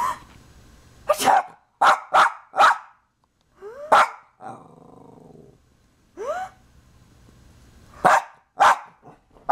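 Dog barking in about ten short, sharp barks, with two yelps rising in pitch and a low growl about four and a half seconds in: the dog's frightened reaction to sneezes.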